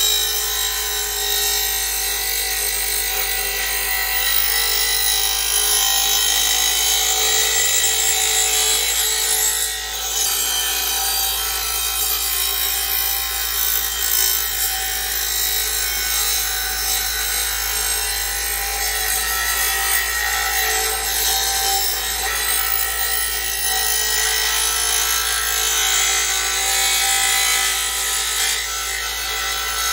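Porter-Cable bench grinder's wheel grinding a steel lawn mower blade: a steady, harsh grinding with a brief dip about ten seconds in, as the blade is worked back and forth to sharpen its badly nicked edge.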